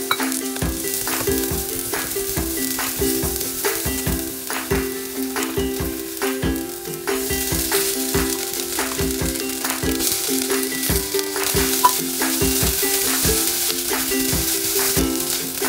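Oil sizzling in a saucepan as sliced onion and garlic fry, getting louder about halfway through when shredded fried fish goes in and is stirred with a spatula. A background music track with a steady beat runs underneath.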